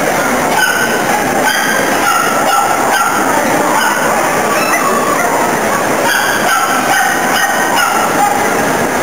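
Loud, steady din of a big exhibition hall, with short, high, honk-like calls repeating every half second to a second over it.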